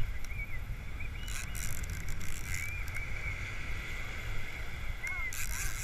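A large conventional fishing reel cranked steadily against a hooked shark, heard through wind buffeting the microphone and the rumble of surf. A few short high chirps come through, the clearest about halfway and near the end.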